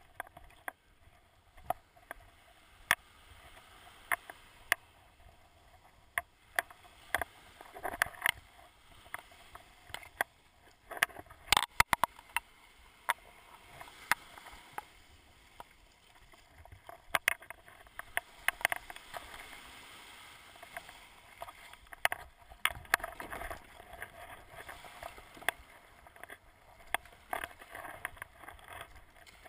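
Plastic sit-on-top kayak being launched through small breaking waves: a steady wash of surf and water, broken often by sharp knocks and taps, loudest in a cluster about halfway through. Paddle strokes splash near the end.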